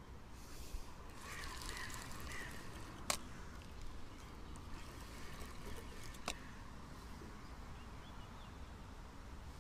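Two sharp clicks about three seconds apart from a spinning fishing reel being handled. A bird calls faintly a few times in the first seconds.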